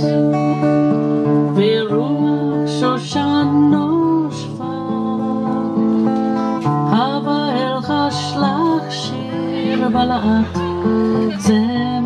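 Acoustic guitar music, strummed and picked, with held notes and occasional bending slides.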